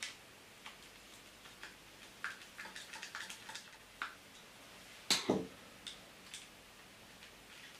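Small clicks and ticks of a screwdriver working the screws of a plastic handlebar switch housing, clustered in the middle, with one louder clack about five seconds in.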